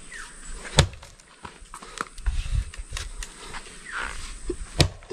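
Two sharp knocks about four seconds apart, the first about a second in and the second near the end, with fainter clicks and rustling between them.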